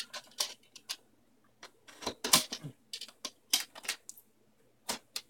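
Irregular sharp clicks and knocks from a large cardboard shipping box being handled and opened, a few louder ones spread through.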